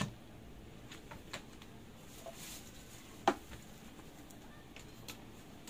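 Quiet room tone broken by a few light clicks and knocks as a digital multimeter is handled on a workbench. The sharpest single click comes about three seconds in.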